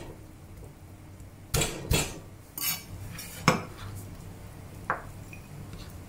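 Chef's knife knocking and scraping against a wooden cutting board while garlic cloves are handled: about half a dozen separate clacks and a short scrape, the loudest about three and a half seconds in, over a faint low hum.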